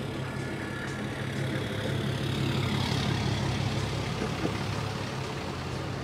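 Electric skateboard rolling over parking-lot asphalt: a steady rumble that grows louder in the middle.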